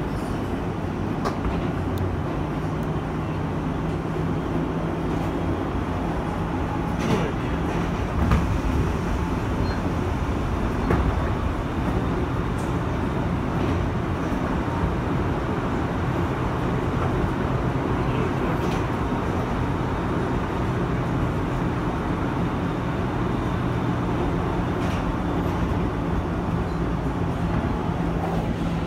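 Kawasaki R160B subway car running at speed through a tunnel: a steady rumble of wheels on rail with a low hum from its Alstom ONIX inverter-driven AC traction motors, and occasional sharp clicks from the track.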